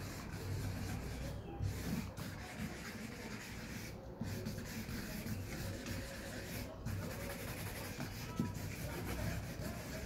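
Marker pen rubbing and scratching across paper in repeated strokes, with short pauses between strokes.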